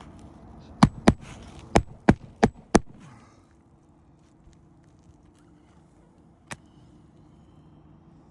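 Hammer blows on roof shingles: six quick sharp strikes in about two seconds, then one more a few seconds later.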